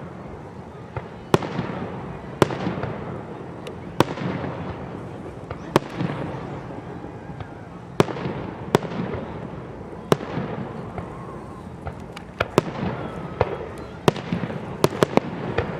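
Aerial fireworks bursting: sharp bangs about every one to two seconds, each followed by a fading echo, then a quicker run of bangs near the end.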